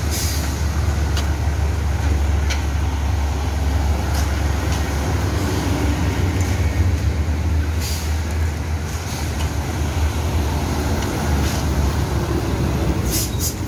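Heavy dump trucks passing close by, a steady low engine and tyre rumble throughout. A few short scrapes and clicks sound over it as a shovel works a gravel pile.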